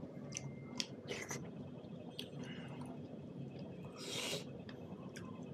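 Close-miked eating by hand: wet chewing and sharp lip smacks while eating buffalo meat curry with finger-millet dhido, with a short breathy burst about four seconds in.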